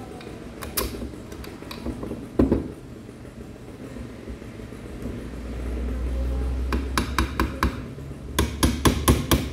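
Metal hand tools and engine parts clinking and tapping together during moped engine assembly: a heavier knock about two and a half seconds in, then a quick, uneven run of light metallic clicks near the end.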